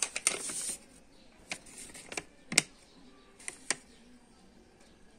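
A paper shipping label being handled: a short rustle at the start, then scattered sharp crinkles and clicks of paper and packaging.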